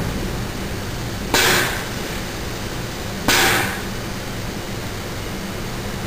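Air-operated pump feeding extrudable polyester tooling paste through a hose: a steady hum with a sudden hiss of air about a second in and again about two seconds later, each fading over half a second.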